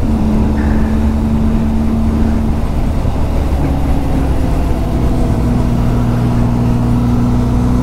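Benelli motorcycle engine running at cruising speed, heard from the rider's seat, with wind and road noise over it.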